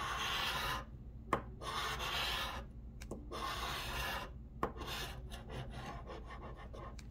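Scratch-off lottery ticket being scratched with a small tool: a run of rasping scrapes, with longer strokes in the first few seconds and shorter, quicker ones from about halfway on.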